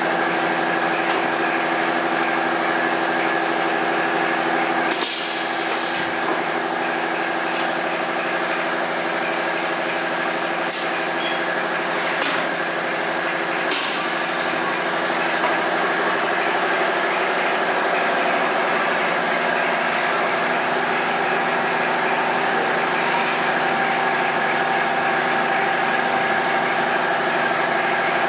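Magnetic particle inspection bench for shafts running: a steady machine hum with several steady tones over a hiss. It is broken by a few sharp clicks about 5, 12 and 14 seconds in.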